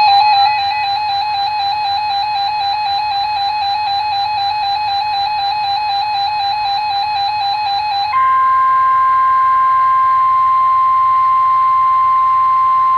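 Radioshack 12-521 weather radio sounding an electronic warbling alert tone, pulsing a few times a second, for about eight seconds. It then switches to a single steady tone, the NOAA Weather Radio 1050 Hz warning alarm that comes before a new warning message.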